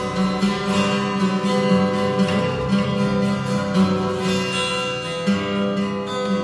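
Instrumental music led by guitar, notes picked and strummed with held chords that change about every second.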